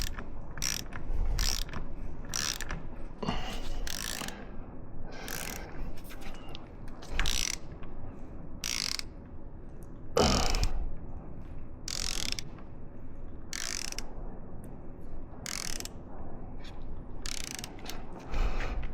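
Hand ratchet clicking in short, uneven runs as a frame slider bolt is snugged into the motorcycle's engine mount.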